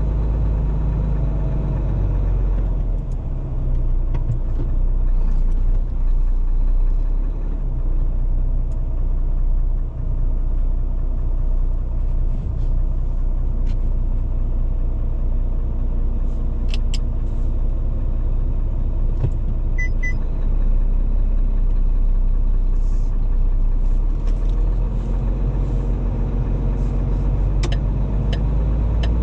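Diesel engine of a rigid lorry heard from inside the cab, running steadily while the lorry creeps along at low speed, with a few faint clicks.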